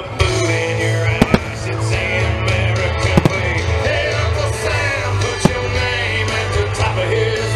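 Music with singing plays steadily throughout, with firework shells bursting in a few sharp bangs, a pair about a second in, one about three seconds in and another about five and a half seconds in.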